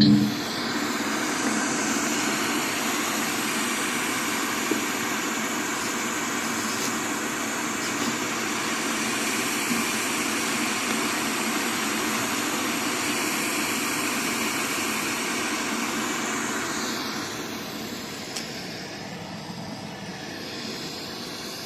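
Steady rushing noise, starting just after a couple of thumps and dying down about seventeen seconds in, then carrying on more quietly.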